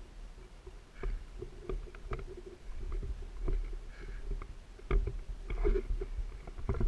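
Footsteps through dry stubble and grass with rustling, and irregular knocks of the carried airsoft sniper rifle and its mounted camera, over a low handling rumble. The steps get louder and closer together near the end.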